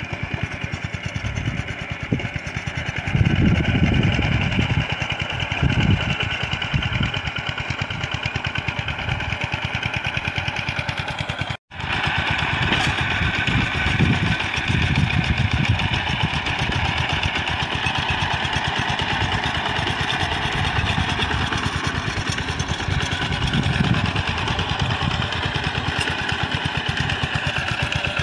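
Two-wheel walking tractor's engine running steadily under load as it ploughs a flooded rice paddy, a fast, even chugging. The sound drops out for a moment about twelve seconds in.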